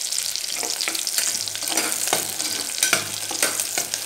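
Shallots and curry leaves sizzling as they sauté in hot oil in a pressure cooker pot, frying toward golden brown. A steel ladle stirs them, scraping and clicking against the pot, with a few louder knocks in the second half.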